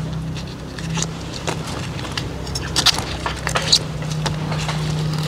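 Knife cutting and trimming lemongrass stalks by hand: a few short, crisp cuts with rustling of the stalks and leaves. A steady low engine hum runs underneath.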